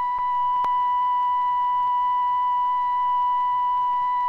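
A steady electronic signal tone at one high pitch with fainter overtones, sounding unbroken as the bomb-release signal; a single faint click about half a second in.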